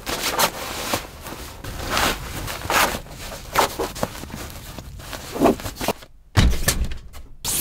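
Nylon stuff sack rustling and scraping as it is handled and pushed across a pickup's tailgate, in irregular bursts. A dull low thump comes about six seconds in.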